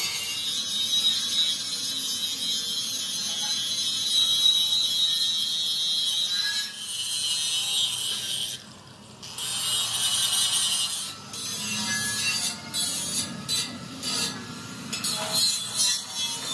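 Handheld angle grinder grinding the steel edge of a tractor front blade, a steady high-pitched grind. A little past the middle it drops out briefly, and in the second half it comes in short stop-start passes.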